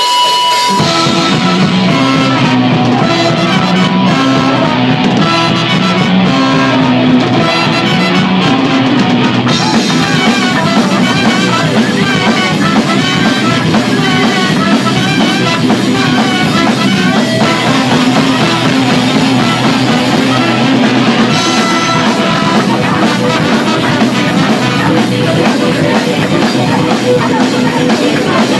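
Live ska band playing loud and steady: trombones and trumpet over electric bass, guitar and drum kit.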